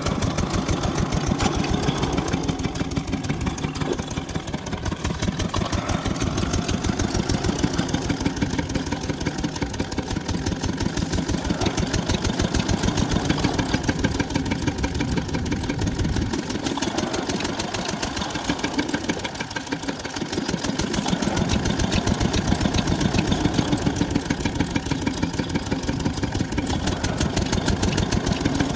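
Small stationary diesel engine of an irrigation pump set running steadily, with a regular firing beat. For a few seconds in the middle the deep part of the beat fades, then returns.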